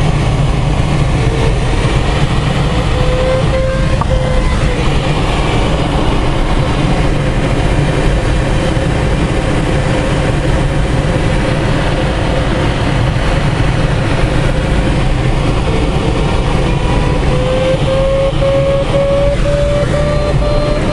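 Steady rushing airflow noise in a glider cockpit in flight. Over it, the variometer's audio tone sounds steadily and rises in pitch over the last few seconds, the sign that the glider is climbing in lift.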